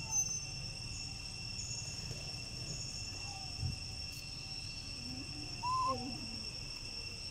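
Steady insect drone at two high pitches, with a short high chirp just after the start and a brief warbling animal call about six seconds in.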